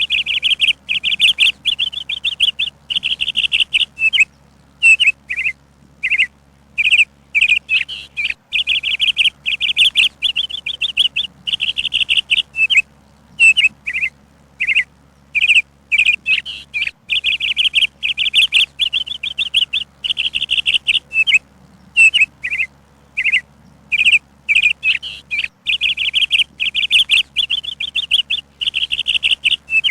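Songbird singing: runs of rapid, high chirps lasting a second or two each, repeated again and again with short gaps between them.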